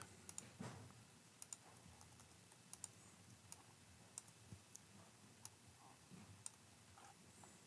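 Faint, irregular clicks of a computer keyboard and mouse being worked, over near-silent room tone.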